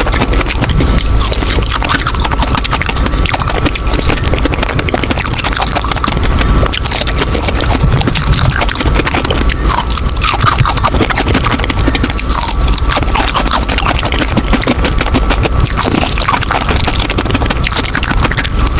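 Close-miked crunching and chewing of frozen strawberry amber candy, a dense run of crisp cracks and crackles.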